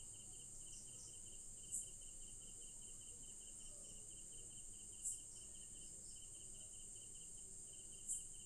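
Faint insects chirping: a steady high-pitched trill with a faster pulsing chirp beneath it, the trill swelling briefly about every three seconds.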